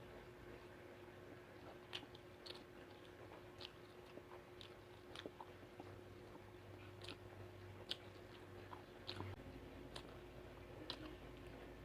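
A person chewing food close to the microphone: faint, soft chewing with a dozen or so irregular small mouth clicks.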